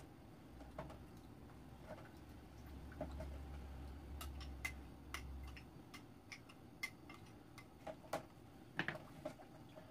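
Metal spoon clinking and scraping against a small ceramic bowl and a pot rim as seasoning is scooped into a stew pot: light, irregular clicks, sparse at first and more frequent in the second half, over a faint low hum that stops about two-thirds of the way through.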